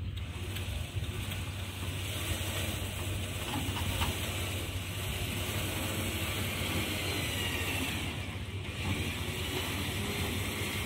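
A motor running steadily with a low hum and a mechanical whirring.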